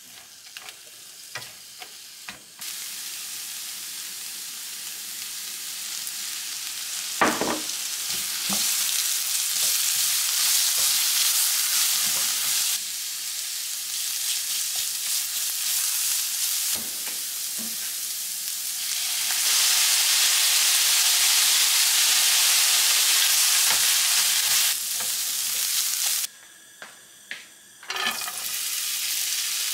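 Julienned radish sizzling in a nonstick frying pan as it is stir-fried, with a spatula scraping and knocking against the pan. The sizzle starts a couple of seconds in and drops out briefly near the end, then strips of carrot are tipped into the hot oil and begin to sizzle.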